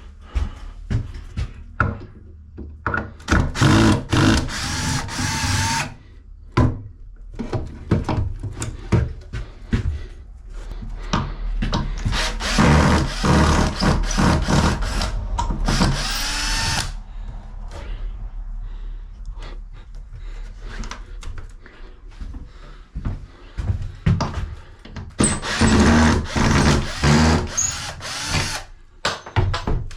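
Power drill running in three long bursts, its pitch rising and falling within each run, with knocks and clatter between the runs.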